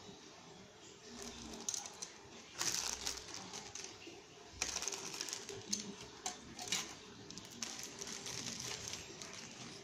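Hard plastic model-kit parts being handled: a parts sprue clicking and clattering against the table, mixed with plastic crinkling, in a string of short sharp bursts from about a second and a half in.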